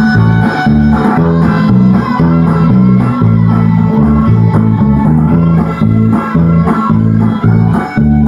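Electric bass guitar playing a steady alternating bass line that moves between E, A and D, in an instrumental stretch of a rock song.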